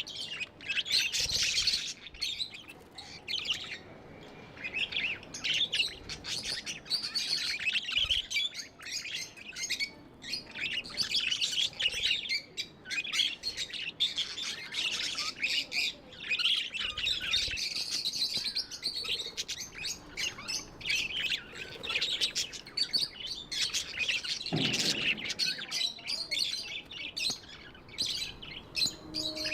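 Budgerigars chirping and warbling in a continuous fast chatter, several birds at once.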